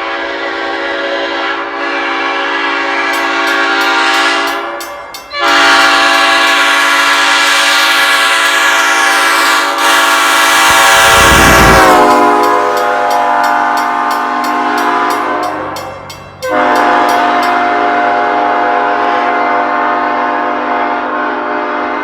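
Nathan Airchime Old Cast P5 five-chime locomotive air horn blowing its chord in long, loud blasts. The horn nearly cuts off about 5 and 16 seconds in and sounds again louder each time. About 11 seconds in its pitch sags briefly with a low rush of air.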